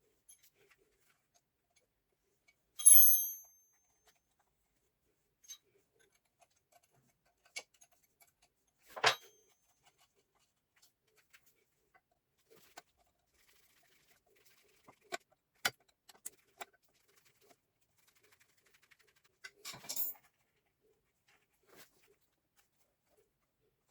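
Scattered clicks and clinks of metal parts and tools being handled, with one ringing metal clink about three seconds in and a duller knock about nine seconds in.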